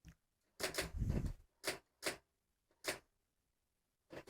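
Keys of an old manual typewriter striking the paper in an irregular run of typing: a quick burst of strikes about a second in, a few single strikes after, then a pause before one last strike near the end.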